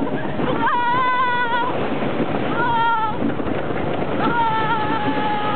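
A rider screaming on a wooden roller coaster: three long, high, steady-pitched screams, the last and longest starting about two-thirds of the way in. Under them runs a constant rush of wind and coaster-train noise.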